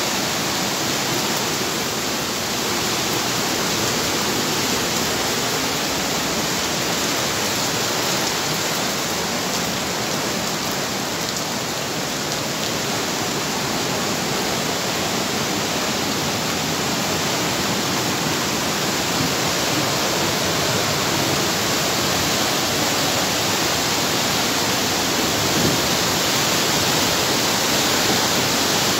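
Steady rushing noise of a muddy stream in flood after rain, the churning water running as an even roar with no let-up.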